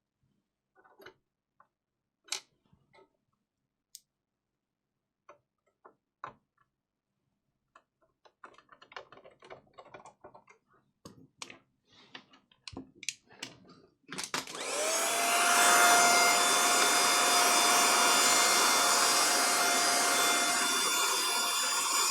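Light clicks and taps from handling small parts, then about 14 seconds in a small high-speed electric fan motor switches on with a rising whine, runs with a steady whirr and whine for about eight seconds, and winds down near the end.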